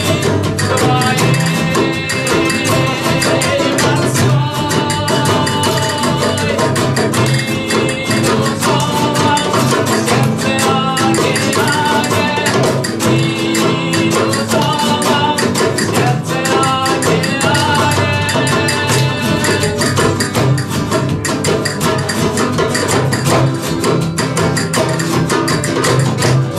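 Live flamenco-style music: two acoustic guitars strumming and picking over a hand drum, with a steady run of sharp percussive strokes.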